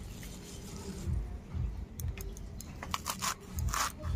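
Kulekhara (kulpi shak) greens being chopped fine on a bonti, the fixed curved blade: a series of quick crisp cuts through the leafy stems, coming thickest in the second half, with soft low thumps between them.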